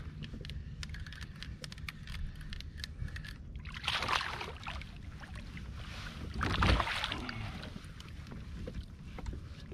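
Two bursts of splashing beside a kayak, about four seconds in and again near seven seconds, as a hooked fish thrashes at the water's surface while being brought to the landing net. A steady low rumble runs under it.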